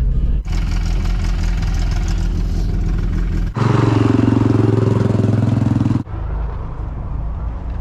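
Car engine revving hard while drifting on ice, the sound jumping abruptly about half a second in, at about three and a half seconds and at about six seconds as the footage cuts. The loudest part, in the middle, dips in pitch and then climbs again.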